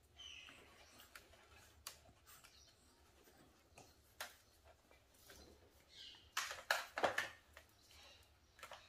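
A Chihuahua puppy and a French Bulldog puppy play-wrestling on a wooden floor: scattered light clicks and scuffles, then a louder flurry of scuffling and puppy play noises about six to seven seconds in.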